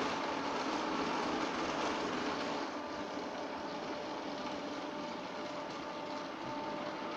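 Christ rollover car wash gantry running with its brushes spinning: a steady mechanical hiss and hum with a faint whine. It eases slightly about three seconds in.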